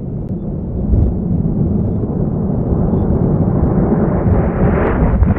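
A deep cinematic rumble sound effect that swells up out of silence and grows louder and brighter, a riser building toward an end-logo hit.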